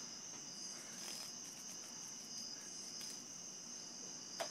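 Steady high-pitched insect chorus, a continuous shrill trill, with a short click near the end.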